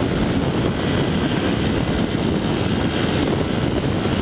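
Motorcycle running steadily at high road speed, close to 70 mph, with heavy wind rushing over the helmet-mounted microphone.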